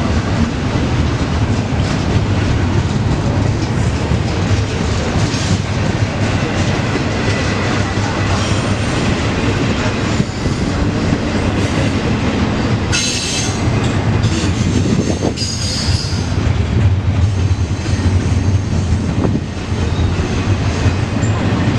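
Intermodal freight train cars rolling past over a grade crossing: a steady, loud rumble of steel wheels on rail with rhythmic clacking. A little past halfway the wheels briefly squeal, twice.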